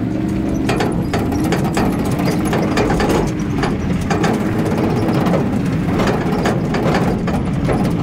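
Empty steel log-arch trailer rattling and clanking irregularly as it is towed over gravel behind a pickup truck, over a steady drone of engine and tyres.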